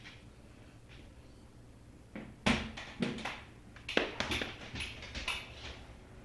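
Several sharp knocks and clicks over about three seconds, the first and loudest about two and a half seconds in, after a quiet start.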